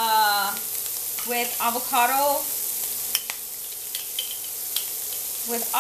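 Diced pork, onions, garlic and broccoli frying in ghee in a skillet: a steady sizzle with a few sharp pops and crackles.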